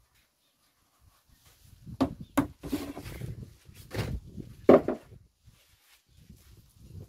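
Handling of plastic buckets and tubs holding pig-feed ingredients: a few sharp knocks and clatters, the loudest nearly five seconds in, with scraping and rustling between.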